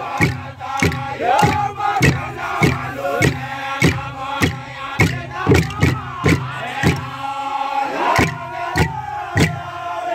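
A group of men chanting together, their voices sliding up and down in pitch, over a steady struck percussion beat of about two strokes a second.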